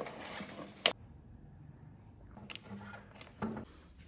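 A few sharp clicks with faint handling clatter between them, the loudest just under a second in.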